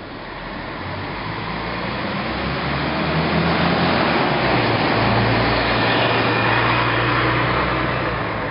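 City bus pulling away from a stop and driving close past: a low engine hum and a rush of road noise build over the first few seconds, are loudest about five to seven seconds in, then ease off near the end.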